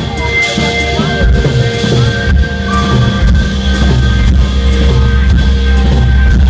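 Live band music played loudly, driven by a drum kit with steady drum and cymbal hits over bass and sustained instrument tones; a heavy bass note swells in about halfway through.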